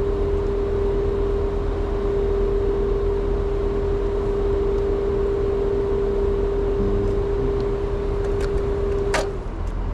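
Old Trane two-stage air-conditioner outdoor unit running with a steady low hum and a steady mid-pitched tone. Near the end there is a click and the tone cuts off.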